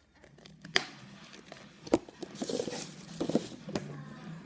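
Slime being squished and handled, with two sharp clicks and a short stretch of crackling.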